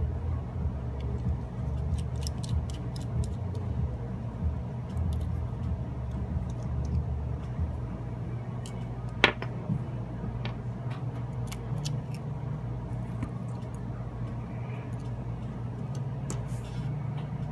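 Small phone parts and tools being handled: faint scattered clicks, with one sharper click about nine seconds in, over a steady low hum.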